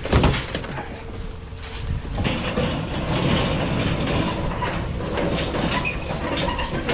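A clattering knock as a salvaged item lands in the back of a vehicle, then a steady vehicle rumble from about two seconds in.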